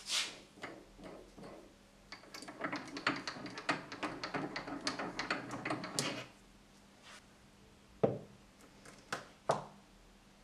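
Small metal lathe parts being handled: a run of light clicks and rattles, then three sharp knocks as metal pieces are set down on a wooden workbench.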